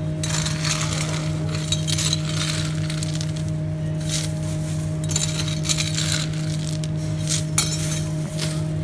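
Frozen shrimp clinking and rattling against a metal scoop and each other as they are scooped into a crinkling plastic bag, in irregular bursts of small clicks. A steady low hum runs underneath.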